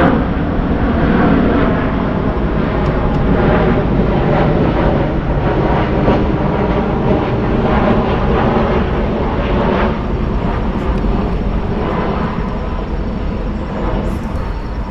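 Boat's outboard motor running steadily with the boat under way, along with rushing wind and water noise.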